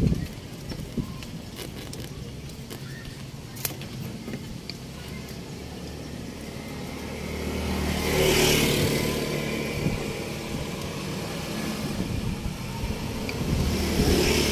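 A vehicle engine running steadily at idle, growing louder for a few seconds about eight seconds in. A few small clicks of plastic wiring connectors being handled come in the first few seconds.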